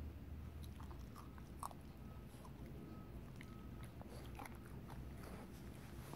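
Teething puppy chewing on a raw carrot: irregular crunching bites at an uneven pace.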